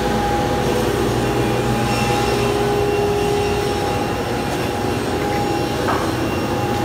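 Woodworking machinery running steadily: the motor and dust-collection blower of a frame end-bar cutting machine with a gang saw, giving an even drone with a steady whine.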